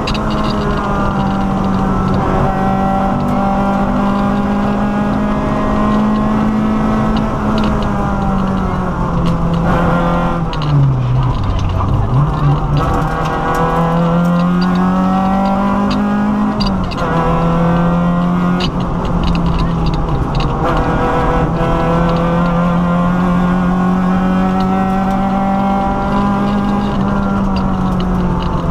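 Peugeot 205 rally car's engine heard from inside the cabin, worked hard at high revs with quick gear changes. About ten seconds in the revs fall sharply, then climb back up through the gears.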